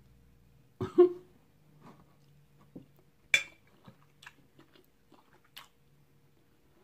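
Close-up mouth sounds of a person eating baked chicken: wet lip smacks and chewing clicks, the loudest a quick pair about a second in and another sharp one near three and a half seconds, with fainter chewing ticks between and after.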